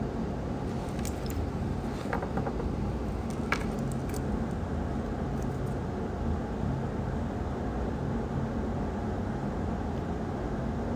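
Steady low background hum, with a few faint light clicks in the first few seconds.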